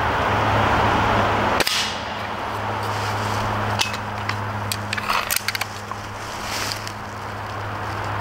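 A single shot from a .22 break-barrel pellet rifle about a second and a half in: a sharp crack with a short ring. Several small clicks and knocks follow as the rifle is handled, over a steady low hum.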